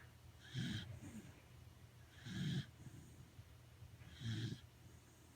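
Sleeping corgi snoring, three snores about two seconds apart, each a low rumble with a raspy hiss over it.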